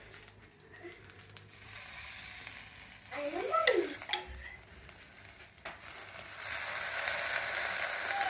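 Appam batter frying in a hot pan, sizzling after coconut milk is poured on. The sizzle builds and turns loud and steady about six seconds in.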